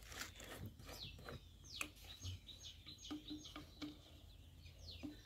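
Faint chirps of small birds: a string of short, quick downward-sweeping calls, repeated every fraction of a second to a second.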